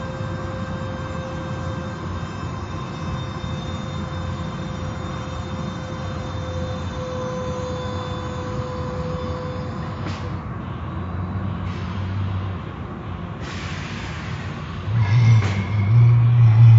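Car wash equipment running: a steady motor whine over a low rumble, with hissing bursts of spray about ten seconds in and again a few seconds later, and a louder low rumble near the end.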